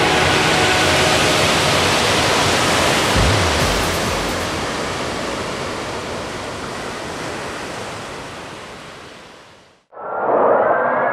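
Steady rush of surf breaking on a sandy beach, with faint background music under it at first. It fades away to silence just before the end, and a short electronic whoosh with a rising pitch follows.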